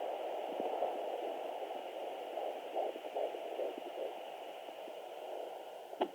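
Pocket fetal Doppler's speaker giving a steady whooshing hiss with irregular swishes from a 14-week baby moving around, which makes the heartbeat hard to pick up. A sharp click near the end.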